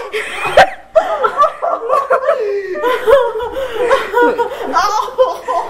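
Young women laughing hard and without pause, in high, broken peals. There is one sharp knock about half a second in.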